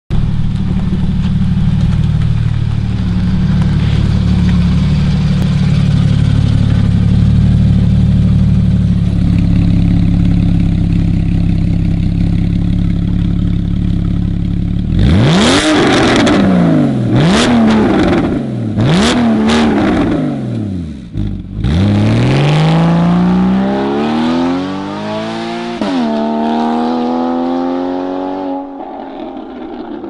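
Porsche 981 Cayman flat-six through an Armytrix valvetronic exhaust, idling steadily for about fifteen seconds, then revved sharply four times. After that the revs climb for several seconds, with a quick jump near the end, and the sound fades as the car pulls away.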